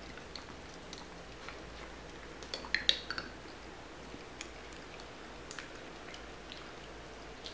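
Dogs licking ice cream off a metal spoon: soft, scattered wet licking clicks, with a short run of sharper, louder spoon clinks about three seconds in.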